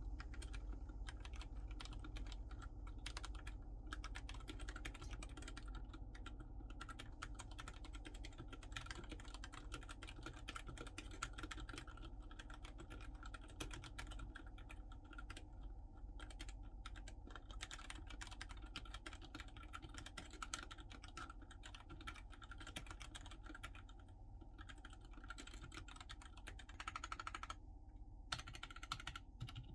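Fast, continuous typing on a Royal Kludge RK68 Pro 65% mechanical keyboard during a typing test: a dense stream of keystroke clacks, with a brief pause near the end.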